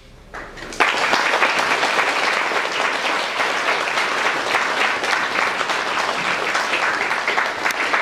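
Audience applauding: a few claps about half a second in, then full, steady clapping from about a second in.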